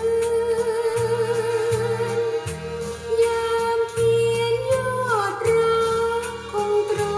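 A Thai popular song played from a vinyl record through a valve amplifier. A held melody line with vibrato, bending to a lower note about five seconds in, runs over a bass line and a steady beat.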